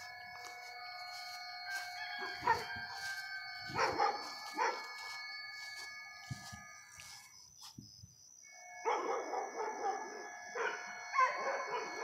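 A train giving off a strange chime-like ringing: several steady high tones held together, swelling and fading with sharp accents. The tones drop away for about a second past the middle, then come back.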